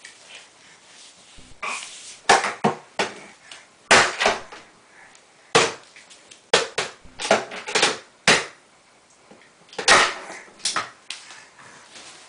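A small hand-held toy banged repeatedly against furniture and the floor: irregular knocks and clatters in quick clusters of two to four hits, each stopping at once, thinning out near the end.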